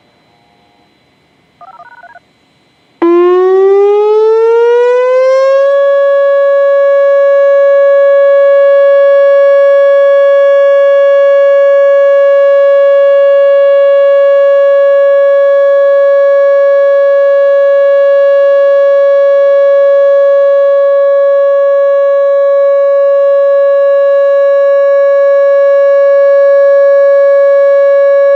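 A short electronic beep, then a Whelen WPS-2910 electronic warning siren starts about three seconds in. Its pitch rises over a few seconds and then holds a steady, painfully loud alert tone.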